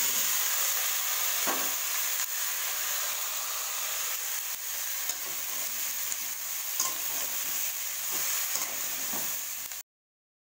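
Cauliflower florets sizzling in hot oil in a kadai, with a spatula scraping and stirring them every so often. The sound cuts off suddenly near the end.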